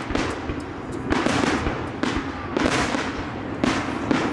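Aerial firework shells bursting in a display, one boom about every second with smaller pops in between.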